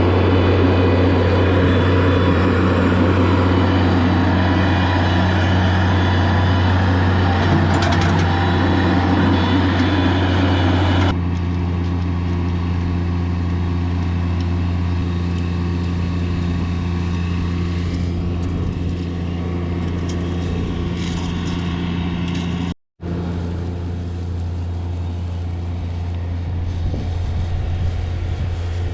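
Engine of a mini compact loader running steadily with a low hum. The sound steps down in level about eleven seconds in and cuts out for a moment about twenty-three seconds in.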